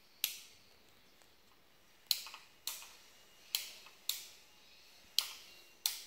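Plastic rotary fan-speed regulator knob on a wall switch plate being turned through its steps: seven sharp clicks, unevenly spaced.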